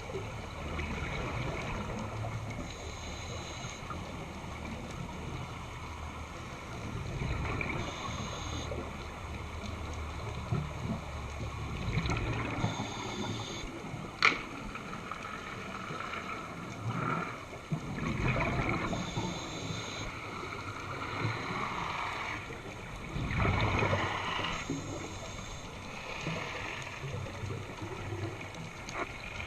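A scuba diver's regulator breathing, heard underwater: an inhaled hiss followed by a rush of exhaled bubbles every few seconds. There is one sharp click about halfway through.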